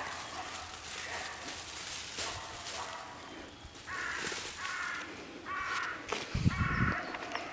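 Fern fronds and leaves rustling as a hand pushes through them to tuck a ball in. About four seconds in come four short pitched calls, about a second apart.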